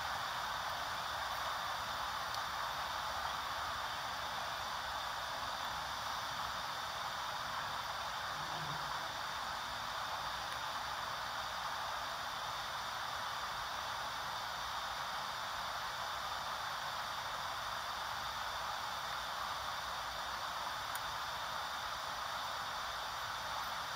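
Steady static hiss from a camcorder playing back videotape through its small built-in speaker.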